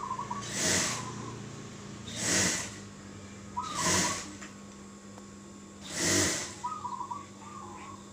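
A zebra dove (perkutut) cooing in short trilled phrases, several times. It is broken by four short, louder hissing whooshes.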